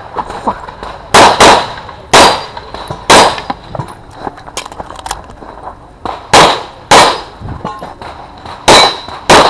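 CZ pistol firing about eight shots at close range, in quick pairs and singles with pauses while the shooter moves between firing positions.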